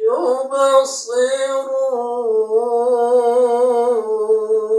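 A male Quran reciter (qari) chanting in a melodic style, drawing one syllable out into a long held note with a slight waver. A hissing consonant comes about a second in.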